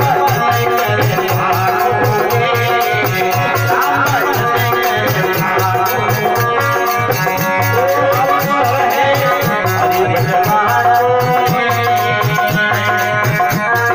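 Live Rajasthani bhajan music: a harmonium playing the melody over fast, steady dholak drumming.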